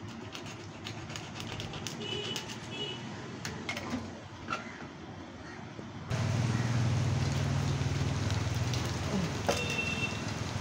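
Knife tapping and cutting through fish on a plastic cutting board, with birds chirping. About six seconds in, a loud, steady low hum starts abruptly and runs on.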